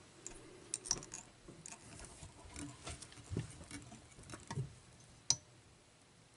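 Faint scattered ticks and rustles of fingers handling a bunch of deer hair on a hook held in a fly-tying vise, with one sharper click about five seconds in.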